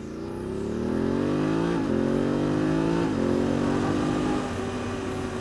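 Motorcycle engine accelerating hard, its revs rising through two gears with two quick upshifts about two and three seconds in. About four seconds in the engine note settles and gets a little quieter as the pull eases.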